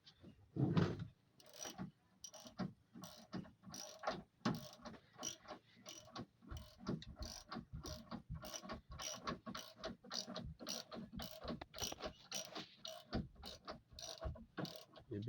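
A hand ratchet clicking in quick, steady strokes, about three clicks a second, as fasteners or rigging are worked during an inboard engine installation.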